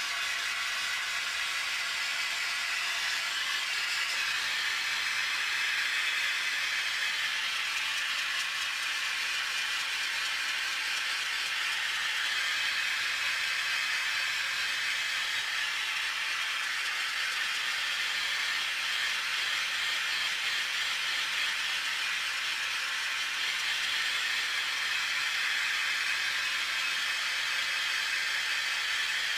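Acetylene torch flame hissing steadily while preheating a cast-iron part before welding, which is done to keep the cast iron from cracking.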